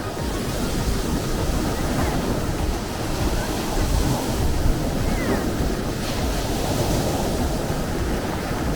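Sea waves washing continuously: a steady rushing noise with a deep low rumble.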